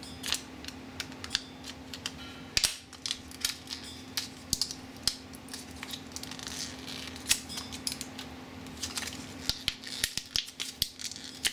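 Child-resistant plastic blister pack of a coin-cell battery crackling and crinkling in irregular sharp clicks as it is worked open by hand, over a low steady hum.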